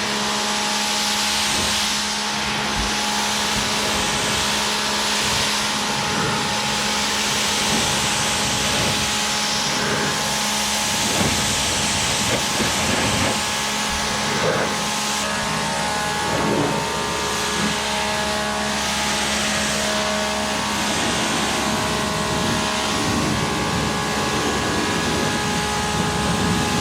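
Pressure washer spraying, a steady loud hiss of water jet over a constant hum from its pump motor.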